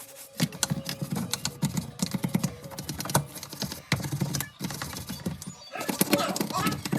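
Dishwasher parts being handled and cleaned by hand: rapid, irregular clicking and clattering.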